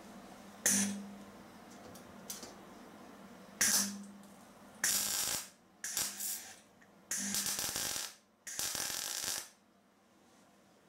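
MIG welder laying a series of short welds into the thin sheet-steel floor pan: six bursts of arc crackle and hiss. The first two are brief, and the later four each last about half a second to a second.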